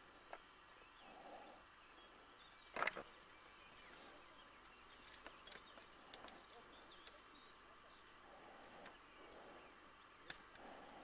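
Near silence: faint outdoor background with a few scattered clicks, the loudest a sharp knock about three seconds in.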